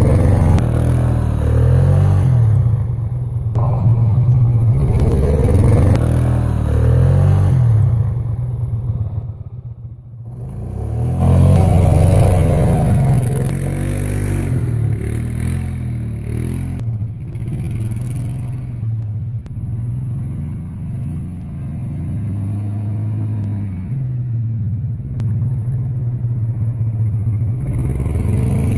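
ATV (quad) engine revving up and down repeatedly as the quad spins and drifts through snow. The sound dips briefly about ten seconds in, then the revving picks up again.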